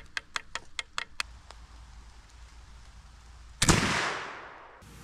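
Flintlock muzzleloading rifle firing once, about three and a half seconds in: a sudden sharp crack that fades away over about a second. Before it, a run of faint, evenly spaced ticks in the first second and a half.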